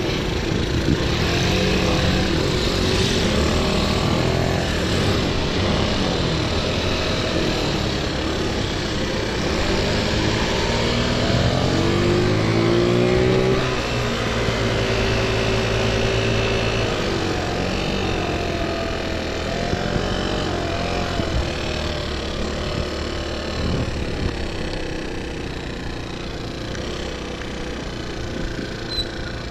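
Motor scooter being ridden on a road: wind rushing over the microphone, with the small engine's note rising and falling with speed, climbing steadily for a few seconds about halfway through and then dropping away.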